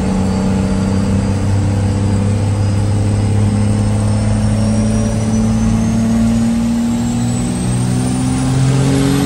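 First-gen Cummins 5.9 L 12-valve turbo-diesel straight-six pulling hard under acceleration from inside the cab, its note climbing steadily. A high turbo whistle rises in pitch over it.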